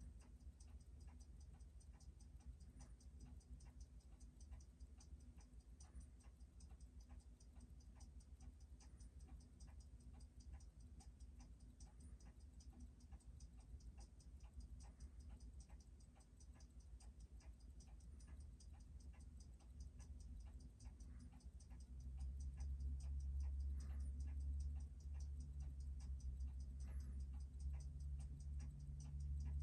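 Seiko 6105 automatic movement running with a steady, rapid, even ticking, as heard on a timegrapher while its amplitude is watched. A low hum comes in about two-thirds of the way through.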